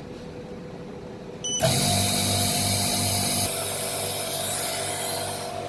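OCAmaster K6H Pro laminating machine starting its laminating cycle: a short high beep about a second and a half in, then its pump motor running steadily with a whine and a low hum. The higher hiss eases off about halfway through while the motor keeps running.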